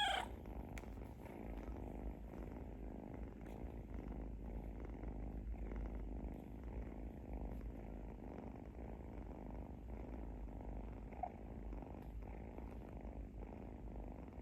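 Sleeping kitten purring steadily, a continuous low rumble.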